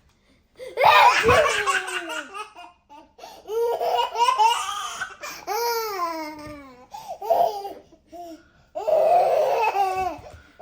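A young child laughing hard and high-pitched, in four long bursts with short breaths between them.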